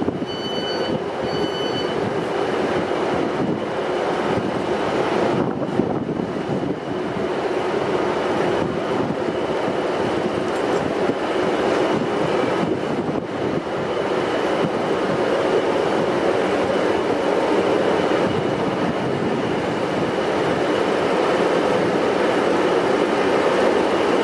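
Pair of class 90 electric locomotives hauling an intermodal container train slowly past: a steady rumble of wheels and locomotives that grows louder as they draw near. A high wheel squeal pulses on and off in the first two seconds.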